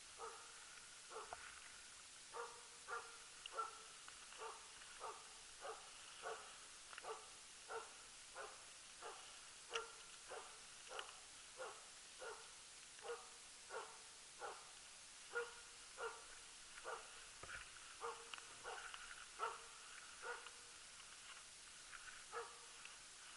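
Faint, steady rhythmic barking of a Jämthund (Swedish elkhound), about one and a half barks a second without a break: the stationary bay bark (ståndskall) of a moose dog holding a moose at bay.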